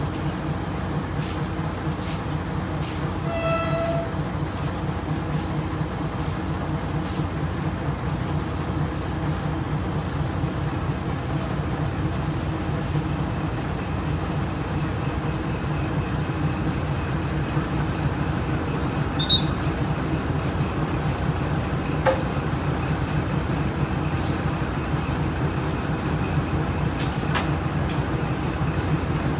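Diesel train engine running with a steady low throbbing rumble as a locomotive draws up, with one short horn toot about three and a half seconds in.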